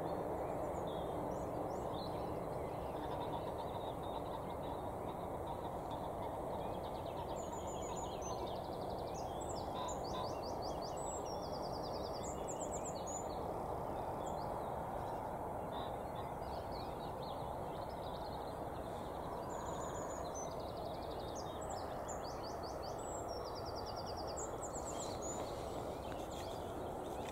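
Steady low outdoor background noise, with a small songbird singing two spells of rapid, high trilled notes, one about a third of the way in and another about three-quarters through.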